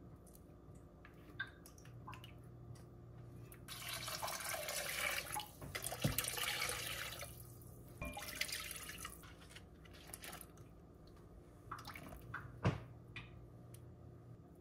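Water poured from a glass measuring cup into a Staub enameled cast-iron pot, splashing in two long pours through the middle and a short one after, with a few sharp knocks near the middle and near the end.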